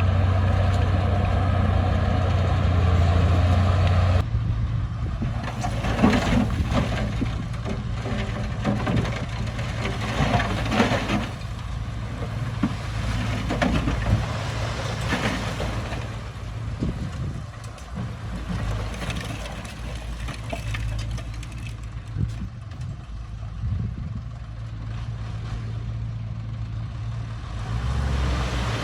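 Diesel engines of earthmoving machines running: a bulldozer and dump trucks. There is a steady engine hum that changes abruptly about four seconds in, then a rougher engine sound with several bursts of harsher noise.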